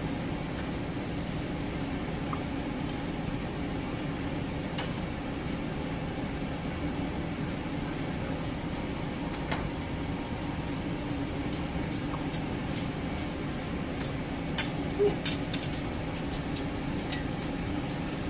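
A steady mechanical hum like a fan. About fifteen seconds in come a few sharp metal-on-glass clinks as canning lids are set onto glass jars of maple syrup.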